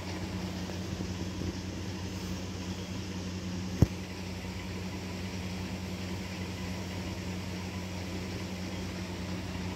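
Steady low hum, unchanging throughout, with a single sharp click about four seconds in.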